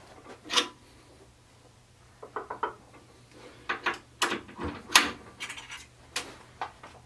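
Metal parts and hand tools clinking and knocking against a Ford 9-inch differential third member as it is taken apart. The clinks come in a scattered series of short, sharp knocks, with the loudest about five seconds in.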